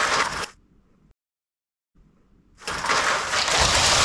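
Lego model being demolished: a loud rushing crash of plastic bricks that cuts off abruptly about half a second in. After a second of dead silence the same crash builds up again, as the clip loops.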